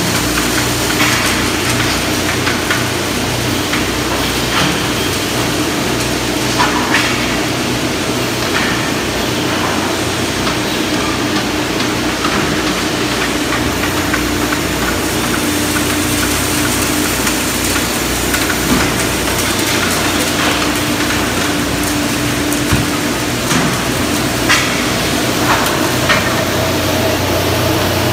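Wood finger-jointing line running: a steady machine hum with a low drone, and scattered knocks and clacks every few seconds.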